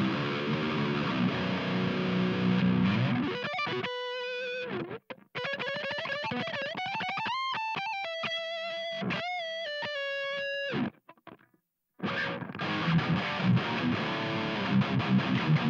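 Seven-string electric guitar, high-gain distorted through an overdrive pedal boosting a Kemper profile of a dual rectifier amp, playing dense low metal riffs. About four seconds in it switches to a single-note lead line with bends and vibrato. It stops for about a second near the eleven-second mark, then the low riffing resumes.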